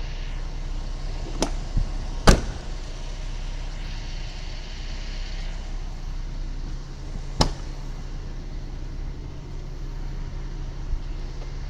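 Several sharp clicks and knocks over a steady low hum. The loudest comes about two seconds in, and another about seven seconds in comes as the Kia Pride CD5's door latch is opened.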